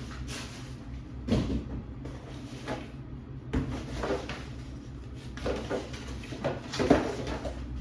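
Cardboard shipping boxes and packaging being handled: a string of short knocks and rustles, the loudest near the end.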